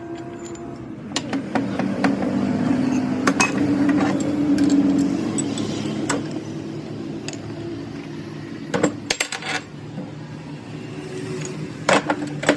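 Metal tools and steel parts clinking and knocking against each other, in irregular sharp clicks with a cluster of quick knocks past the middle and another near the end, over a steady low hum.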